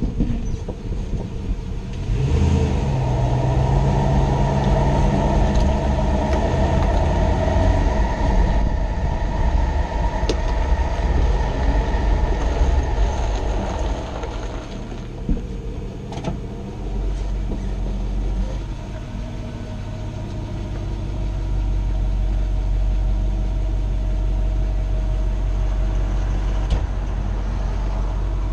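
2006 Toyota Tundra pickup running, a continuous low engine and road rumble that eases a little past halfway and settles into a steady low hum.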